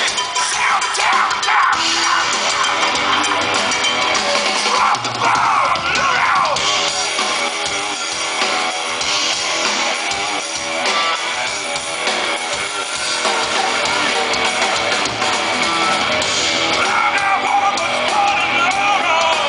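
Rock band playing live: drum kit and electric guitars at full, steady volume, with wavering lead lines over the top.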